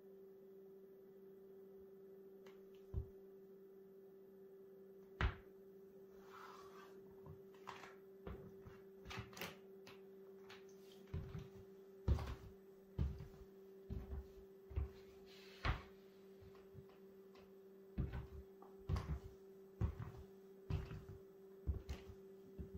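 Studded soccer cleats (Adidas F10 TRX FG) stepping and tapping on a laminate floor: irregular thuds and clacks, only a few at first and coming much more often from about halfway. A steady low electrical hum lies under them throughout.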